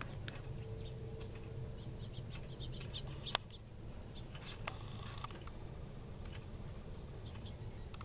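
Birds chirping in short scattered calls over a low steady hum, with one sharp click about three and a half seconds in.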